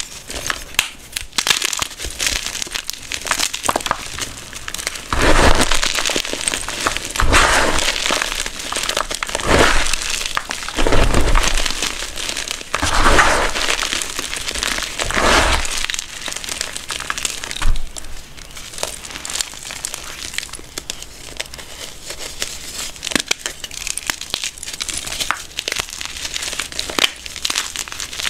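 Blocks of gym chalk crunching and crumbling as bare hands squeeze and crush them in a bowl of loose chalk powder. The crackle is continuous, with a run of louder crunches in the middle.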